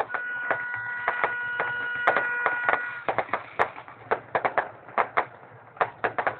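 Fireworks going off: an irregular string of sharp bangs and cracks, with a steady pitched tone held over the first three seconds.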